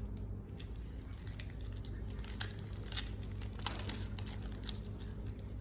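Trading-card packs and cards being handled: plastic wrappers crinkling and cards rustling and sliding against each other, a run of irregular rustles and small clicks.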